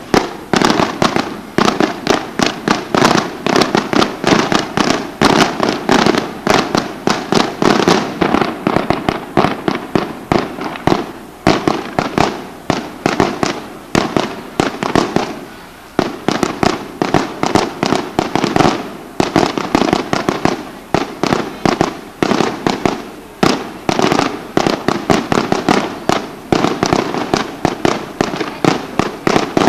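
A long barrage of aerial firecrackers bursting overhead: several sharp bangs a second in a near-continuous string, with a few brief lulls.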